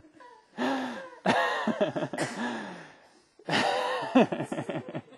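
Audience laughing at a joke, in three waves of laughter with short pauses between.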